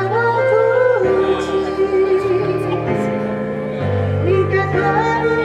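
A singer with a wavering melody over instrumental backing music, its bass notes stepping to a new pitch every second or so.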